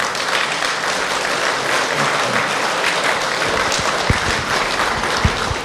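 A crowd applauding: a dense, steady wash of many hands clapping that dies away near the end.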